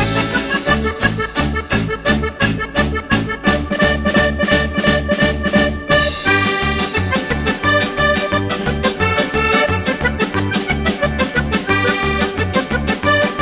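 Upbeat background music led by accordion over a steady, fast bass beat.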